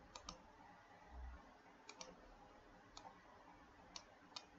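Near silence with a few faint, sharp clicks spread through it, some in quick pairs.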